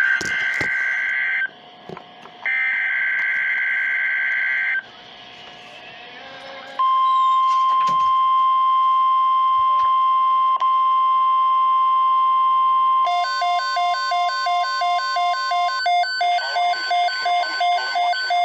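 Emergency Alert System tones: two bursts of shrill, screechy digital data tones (SAME header), then a steady single-pitch warning alarm tone for about six seconds, then rapid on-off electronic beeping starting about thirteen seconds in.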